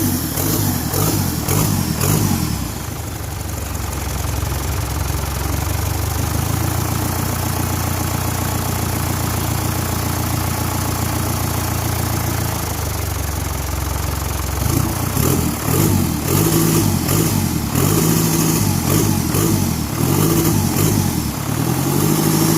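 Kia Carnival 2.5 turbo-intercooled diesel engine running: revved briefly at first, then idling steadily for about ten seconds, then blipped up and down repeatedly in the last several seconds.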